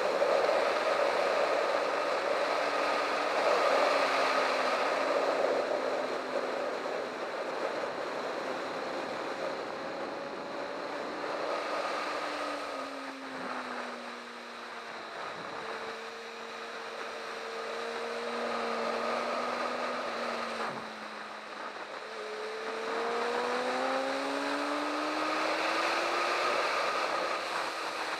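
Sport motorcycle engine on a racetrack with strong wind rush over the microphone. The engine note drops and stays low through the middle as the bike slows into a long corner, then rises again near the end as the rider gets back on the throttle.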